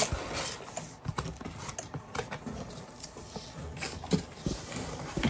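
Cardboard box and packing being handled: irregular rustling, scraping and light knocks as hands dig into a shipping box to pull out its contents.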